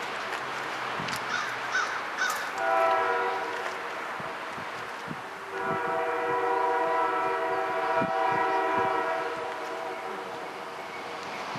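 Diesel locomotive's multi-chime air horn blowing two long blasts, a steady chord of several tones, from a train approaching on the line.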